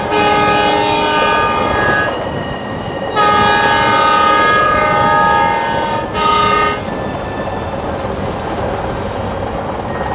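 Indian Railways train's locomotive horn blowing three times: a long blast, a second long blast after a short pause, then a short toot. After the horn, the train runs on with a steady rumble of wheels on the rails.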